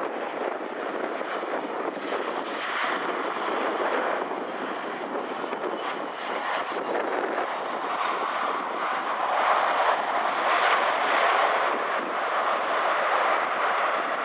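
Jet engine noise from a landing Boeing 737-800's CFM56 turbofans, a steady rushing roar that swells somewhat louder a little past halfway as the airliner rolls out on the runway.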